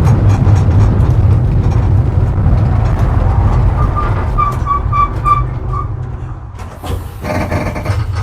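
Tram running with a low rumble that fades as it slows, with a run of about six short, even high beeps midway. Near the end comes a loud hiss lasting about a second.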